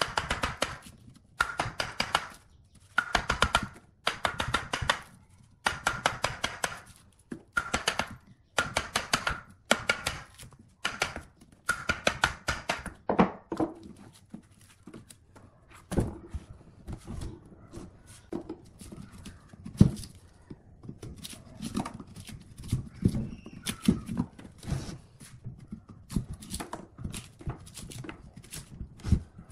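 A chisel-like blade hammered with a wooden mallet to split bark off a log: quick bursts of sharp, ringing taps, each about a second long. About halfway through these give way to slower, duller knocks and scraping as the bark is pried and pulled away.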